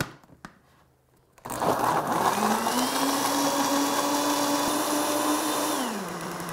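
Electric countertop blender starts after a few light clicks and runs loudly and steadily, grinding halved pinhão (araucaria seeds) in water into a milky liquid. Near the end it is switched off and its motor winds down.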